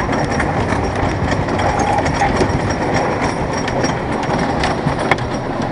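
Roller coaster train being pulled up the lift hill by its chain: a steady mechanical rattle with scattered clicks.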